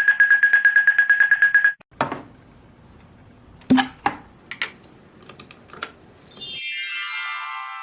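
A rapid bell-like ringing trill, about ten strikes a second, that stops about two seconds in. Then come a few sharp clicks and knocks of a toy barn being opened by hand. Near the end there is a descending chime glissando, a reveal sound effect.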